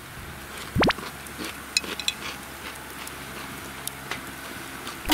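A quick synthetic rising whistle, a sound effect added in editing, sweeps from low to high in a fraction of a second about a second in. After it comes a low steady outdoor background with a few faint sharp clicks.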